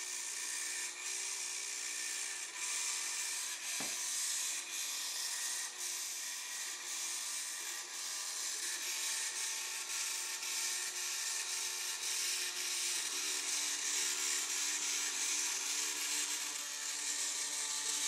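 Homemade toy car's stepper motor driving CD wheels through rubber-band belts, running steadily with a whirring hum and a raspy rubbing hiss. Faint ticks repeat about once a second, with one sharper click about 4 seconds in, and the hum's pitch shifts slightly about two-thirds of the way through.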